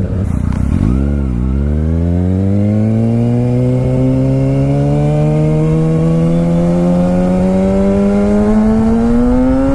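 Kawasaki ZX-6R inline-four running through an M4 Street Slayer exhaust with the baffle removed, sounding more like a 1000. Under way, its note dips briefly about a second in, then climbs steadily in pitch as the bike accelerates through the revs.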